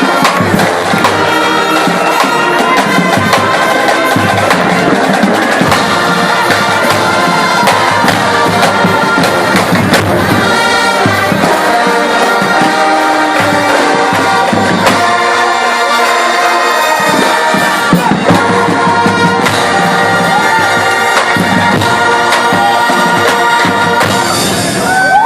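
Drum and bugle corps playing: brass horns sounding held, layered chords over a steady beat of drum strikes.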